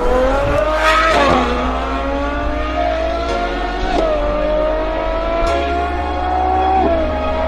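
Ferrari engine accelerating hard through the gears. Its pitch climbs and drops sharply at each upshift, about a second in, about four seconds in and near the end.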